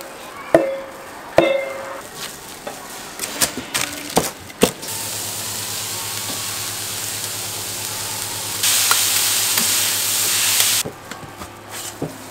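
Three sharp metal clanks with a short ring as steel utensils knock on the jianbing griddle, then a steady sizzle as batter is spread across the hot griddle with a wooden spreader, louder for about two seconds near the end. A few knocks from a cleaver cutting the pancake come at the very end.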